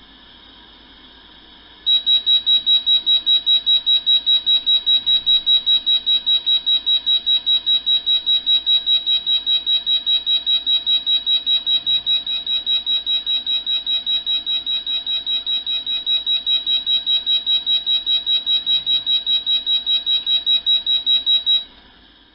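Fire alarm sounder beeping in a rapid, high-pitched pulse, about four beeps a second. It starts suddenly about two seconds in after a faint steady hiss and cuts off suddenly near the end.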